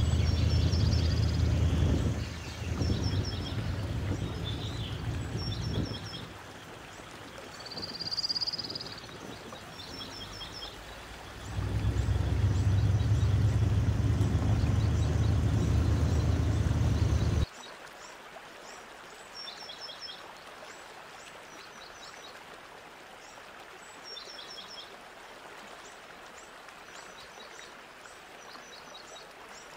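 Small birds calling over and over in quick series of short, high chirps. For the first half a loud low rumble runs under them, easing off for a few seconds in the middle, then it cuts off abruptly past halfway and the chirping carries on over a quiet background.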